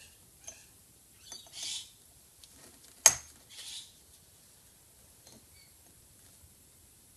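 Small metal parts being handled: an Allen key and tiny retaining screws clicking and scraping against a steel brake-lathe cutting arm, with one sharp metallic click about three seconds in and two short scrapes either side of it.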